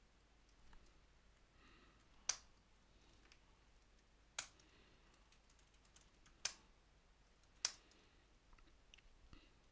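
Typing on a computer keyboard, faint overall: scattered soft key taps and four sharper, louder keystrokes spaced roughly one to two seconds apart.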